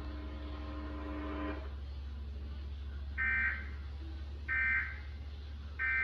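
Three short, identical two-tone digital data bursts about a second apart, played through a TV speaker: the Emergency Alert System end-of-message (EOM) SAME codes that close a monthly test. A steady low hum runs under them.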